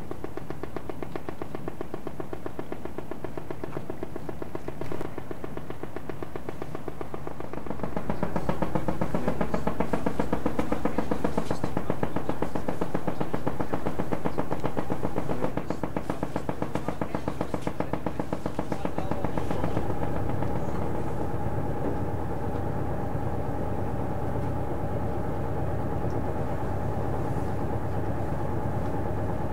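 Motor tug Kent's single-screw diesel engine running with a rapid, even exhaust beat. About eight seconds in it grows louder and its pitch shifts, then it drops back suddenly about halfway through.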